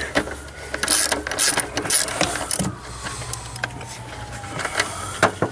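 Irregular clicks and knocks of hand tools working on metal parts during an ABS module removal.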